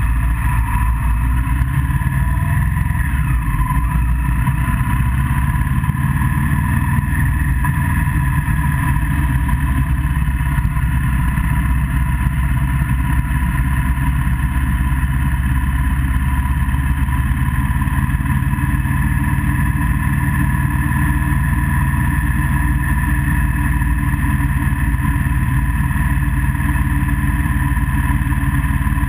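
Steady wind rumble and running noise picked up by a camera on a vehicle riding along a road at an even speed, with a faint steady whine above the rumble.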